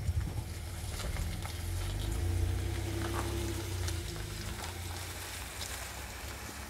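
Low rumble and crackling noise on a phone microphone outdoors, typical of wind and handling, with a faint steady hum from about two to four seconds in.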